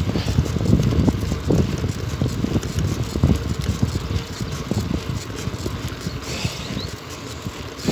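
Wind buffeting the microphone over tyre noise from a bicycle rolling along an asphalt road, with irregular small knocks and rattles.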